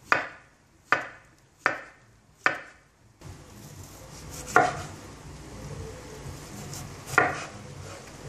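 Kitchen knife slicing peeled banana and then peeled kiwi into rounds on a wooden cutting board, each cut ending in a sharp knock of the blade on the board. There are four evenly spaced cuts in the first three seconds, then two more, spaced further apart.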